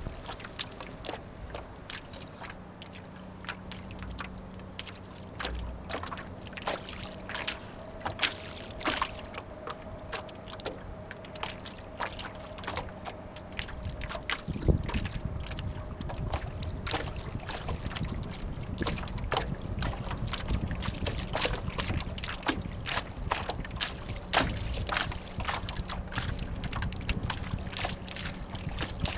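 Small waves slapping and splashing against the hull of an 11 ft Snark sailboat under sail, in many small irregular splashes. About halfway through, a low rumble of wind on the microphone sets in underneath.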